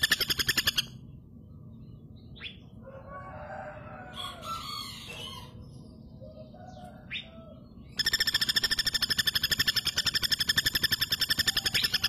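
Female common flameback woodpecker giving its rapid, even rattling call of sharp high notes, heard for about the first second and again from about two-thirds of the way in. In between there are only quieter, scattered short bird calls.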